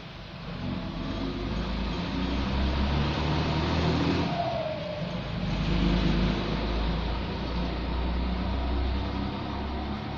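A motor vehicle driving past: a low engine rumble with tyre and road noise that grows louder over the first couple of seconds, peaks around the middle and eases off again.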